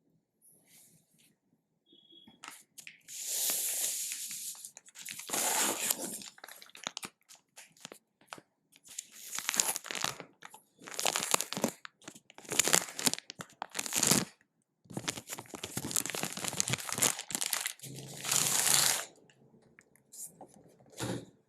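Packaging being torn and crinkled open by hand: a long run of separate tearing and crinkling bursts, some lasting a second or more, with short pauses between them.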